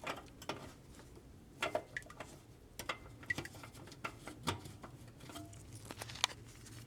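Scattered light clicks and taps from hands working the Kenmore washer's lid switch and lid, which he finds broken. A faint low hum comes in about four and a half seconds in.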